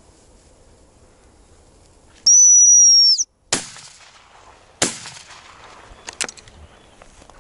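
A dog whistle blown once, a loud steady high note for about a second, then two shotgun shots just over a second apart at a flushed corncrake.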